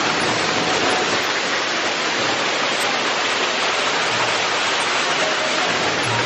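Steady rushing noise of falling water, like a waterfall or stream, with no breaks or changes.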